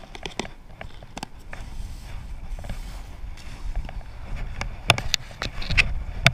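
Handling of fishing gear at a plastic tackle box, then rustling through tall grass, with many sharp clicks and knocks, the loudest near the end, over a low wind rumble on the microphone.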